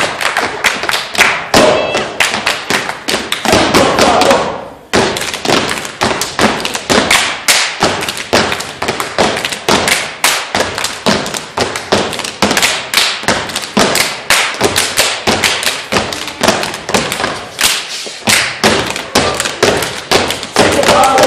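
Step team stepping in unison: rapid rhythmic stomps of dress shoes on the stage with hand claps, the beats coming several a second, with a brief break about five seconds in.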